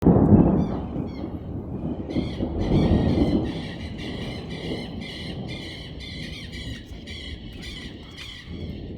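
Thunder rumbling, loudest at the start and swelling again about three seconds in before fading. Over it, a high chirping repeats about twice a second.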